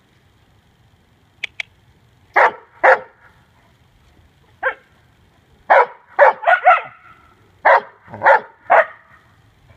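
A dog barking: about ten short, loud barks, a few spaced ones at first, then quicker runs of barks in the second half.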